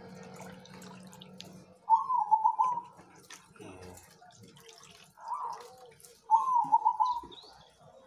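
Caged zebra doves (perkutut) cooing: two loud, rolling, trilled coo phrases about four seconds apart, with a softer coo between them.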